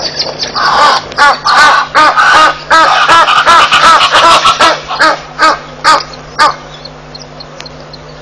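African fish eagle calling: a loud, fast series of notes that rise and fall in pitch, spacing out toward the end and stopping about six and a half seconds in.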